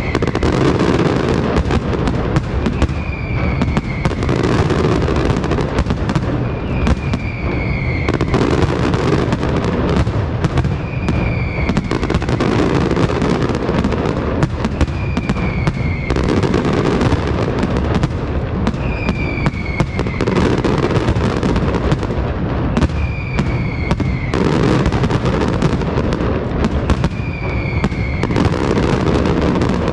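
Pirotecnia Martí castillo, an aerial fireworks display, in full flow: a dense, unbroken barrage of shell bursts and crackle over a heavy rumble, with a short falling whistle about every four seconds.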